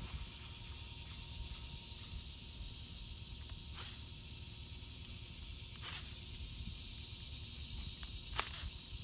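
Steady high-pitched insect chorus, over a low rumble, with three faint clicks.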